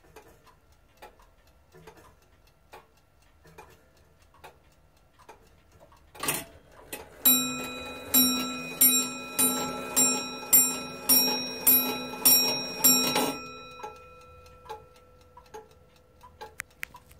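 Reproduction Comtoise wall clock ticking steadily. About six seconds in its strike train releases with a clatter, and the hammer strikes its bell ten times, about one and a half strokes a second, each stroke left ringing: the Comtoise's repeat striking of ten o'clock. The ticking goes on after the last stroke.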